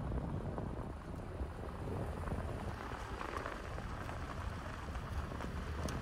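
Wind rushing over the microphone: a steady low rumbling noise with no distinct events.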